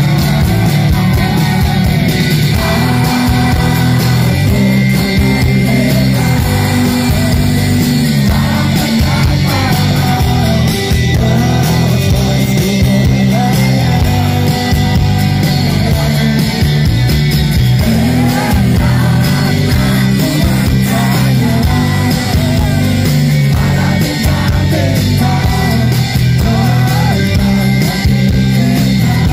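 A live pop-rock band plays through a loud PA: a man sings the lead over guitars, bass and drums, with a heavy low end.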